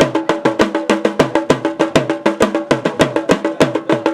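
Fast, steady drumming: quick even strokes, about eight a second, over a steady pitched ringing.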